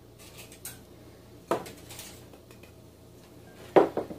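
Kitchenware being handled on a tabletop as flour is measured into a food processor jar: measuring cups and glassware knocking and clinking. There is a light tap, a sharper knock about a second and a half in, and the loudest, a double knock, near the end.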